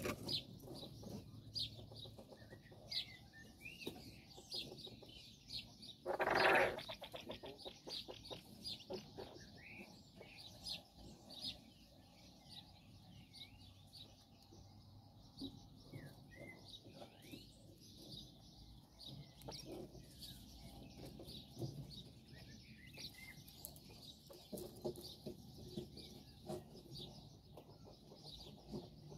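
Japanese quail flock giving soft, high peeping and chirping calls, many short notes scattered throughout. About six seconds in comes one louder buzzing rattle lasting under a second.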